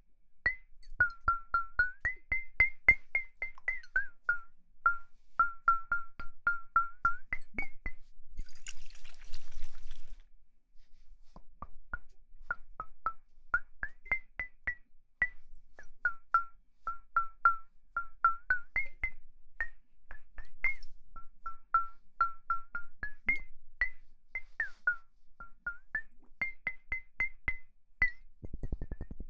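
A rapid series of short, pitched taps or clicks, about four or five a second, their pitch moving between a lower and a higher note. A brief rustle comes about nine seconds in.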